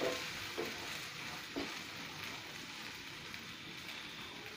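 Fresh green peas and chopped onion sizzling steadily in hot oil in a nonstick frying pan, with three short scrapes of a wooden spatula stirring them in the first two seconds.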